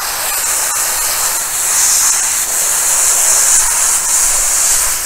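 Garden hose spraying a steady jet of water, used to rinse the soap out of a car-wash mitt.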